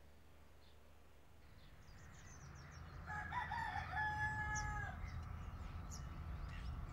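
A fowl crowing: one long call about three seconds in, a few broken notes and then a held note that drops at the end. Small birds chirp faintly and a low steady rumble runs underneath.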